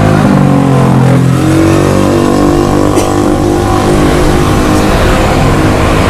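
A vehicle engine running and being revved, its pitch rising over the first couple of seconds and then holding steady.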